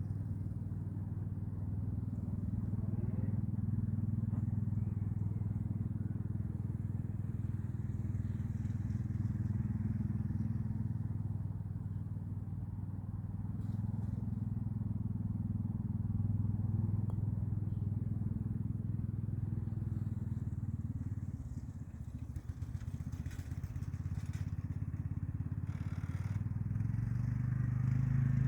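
Golf buggy running as it is driven, a steady low motor hum that eases briefly about three-quarters of the way through, then picks up again near the end.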